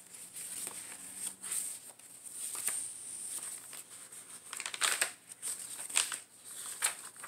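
Paper pages of a handmade journal rustling as they are turned and handled, with a few sharper page flaps in the second half.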